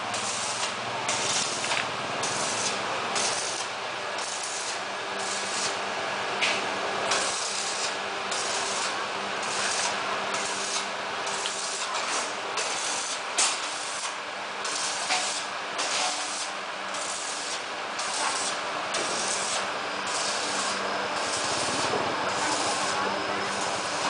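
Steady hissing noise that pulses in an even rhythm a little more than once a second, over a faint low hum, with an occasional light click.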